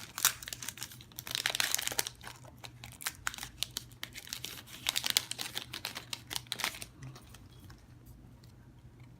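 Foil booster-pack wrapper crinkled and torn open by hand: irregular bursts of crackling that die down about seven seconds in, leaving only faint rustles.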